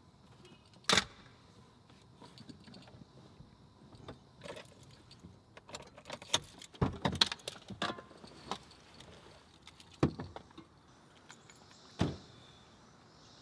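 Clicks and rattles of someone handling things in a parked car: a sharp click about a second in, keys jingling and the door handle and latch working in the middle, and a car door shutting with a thump near the end.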